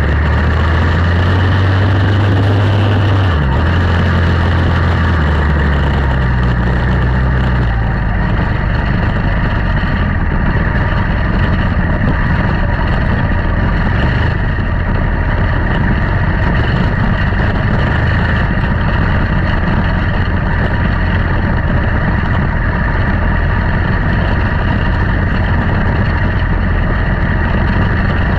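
Quarter midget race cars running their single-cylinder Briggs & Stratton Animal engines in a race, a loud continuous engine drone. The pitch shifts a few times in the first several seconds, then holds steady.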